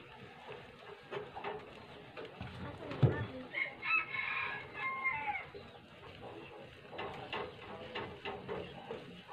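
A rooster crows once, starting about three and a half seconds in and lasting about two seconds, just after a single loud thump. Around it come light taps and scrapes of a stick stirring bird lime in a small tin can on a gas burner.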